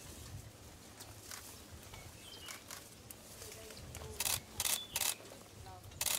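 Camera shutter clicks, two close together about four seconds in, then singles near five and six seconds. Between them are a few faint bird chirps over quiet outdoor ambience.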